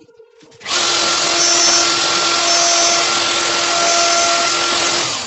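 Handheld power tool running at full speed, switched on under a second in. It is released right at the end and its motor starts to wind down.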